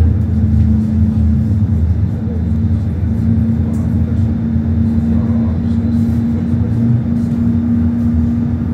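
Tram running, heard from inside the passenger car: a steady low rumble with a held hum over it that stops near the end.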